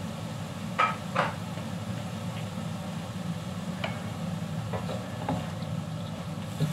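Wooden spatula knocking against a carbon-steel wok and stirring stir-fry vegetables, over a steady low hum. A few sharp knocks, the loudest two close together about a second in.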